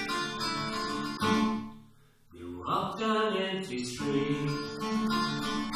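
Music: an acoustic guitar playing an instrumental passage, fading briefly almost to nothing about two seconds in.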